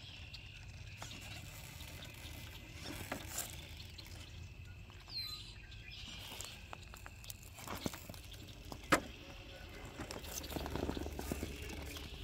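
Traxxas TRX4 K10 scale RC crawler working over broken concrete: scattered light clicks and knocks of its tyres and chassis on the rubble, with one sharp knock about nine seconds in, over a low steady hum.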